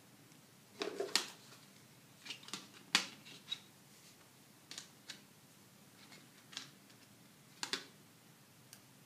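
Sharp plastic clicks and snaps of a Xiaomi Redmi Note 4G's snap-on back cover being unclipped and handled, in irregular small clusters, the loudest about three seconds in.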